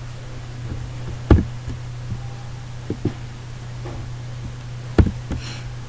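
Computer mouse button clicks picked up by the microphone: a few sharp clicks, the loudest about a second in and near the end. Under them runs a steady low electrical hum.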